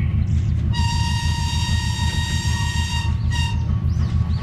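A train horn sounding one long blast of about two and a half seconds, then a short toot, over the steady low rumble of a running train.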